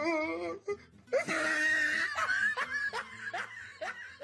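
A person laughing off camera: a wavering drawn-out laugh, then a louder outburst about a second in, breaking into a run of short bursts of laughter about three a second.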